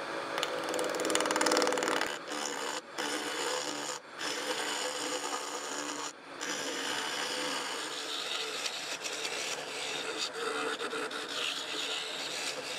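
Lathe gouge cutting a spinning paper-and-epoxy micarta cylinder: a continuous scraping hiss of the tool shaving the surface, broken by a few short gaps. The cylinder is being turned down to take the roughness off its cured surface.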